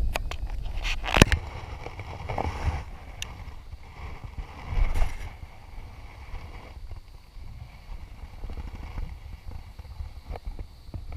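Scattered clicks and knocks of gear being handled aboard a kayak, the sharpest about a second in, over a steady low rumble of wind on the microphone.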